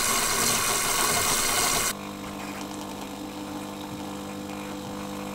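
DeLonghi PrimaDonna Class coffee machine frothing milk with a loud, steady steam hiss that cuts off abruptly about two seconds in. It is followed by a quieter, steady pump hum as the coffee is dispensed onto the milk.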